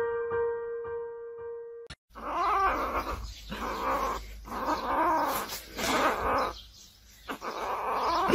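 Soft piano music that cuts off about two seconds in, then a young calico kitten mewing loudly in about five drawn-out calls with wavering pitch, a slice of sausage in its mouth.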